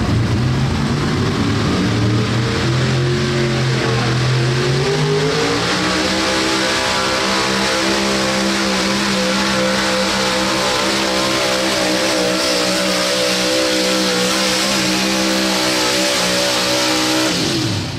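Square-body Chevrolet 4x4 pickup's engine at full throttle under load, pulling a weight sled. The revs climb over the first several seconds, hold high and steady with a brief waver, then drop off suddenly near the end as the pull finishes.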